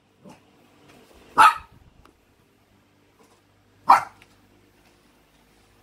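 Small shaggy dog barking: two sharp single barks about two and a half seconds apart, with a faint short yip just before them.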